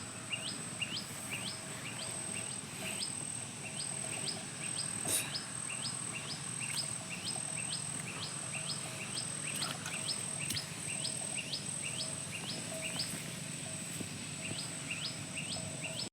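Countryside ambience: a steady high insect drone, with a short rising chirp repeated evenly about two to three times a second, pausing briefly near the end.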